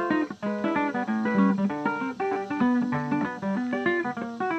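Background music: a plucked guitar playing a quick run of picked notes.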